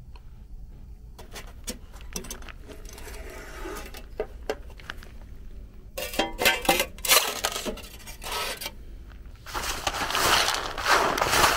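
Spilled wood pellets clicking and clattering as they are handled, with louder scrapes about halfway through, then a hand brush sweeping pellets into a dustpan, a steady scratchy rush over the last couple of seconds.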